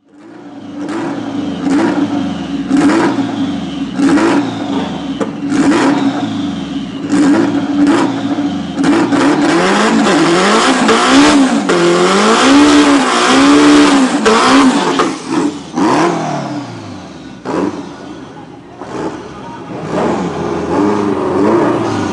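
Turbocharged Mini Cooper S R53 1.6-litre four-cylinder drag engine revving hard in repeated blips, with sharp cracks between them. It is then held at high revs through a burnout, the pitch swinging up and down as the wheels spin, and revs again near the end.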